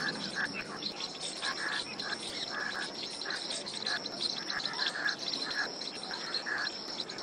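Outdoor animal chorus: a steady, high insect drone with short, sharp chirping calls repeating irregularly over it, a few each second.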